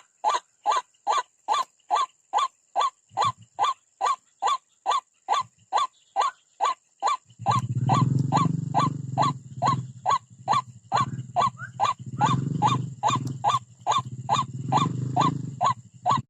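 White-breasted waterhen (ruak-ruak) calling: a single short note repeated very evenly, about two and a half times a second. From about seven seconds in, a low rumbling sound joins the calls.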